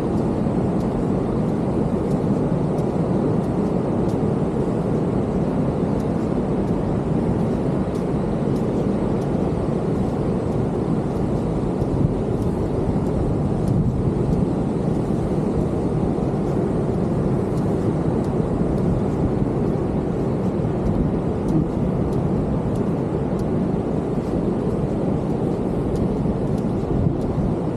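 Steady roar of heavy ocean surf breaking on the beach.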